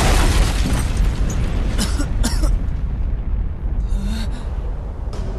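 Cartoon explosion sound effect of an asteroid impact: a deep rumble that is loudest at the start and slowly fades, with a few short cracks about two and four seconds in.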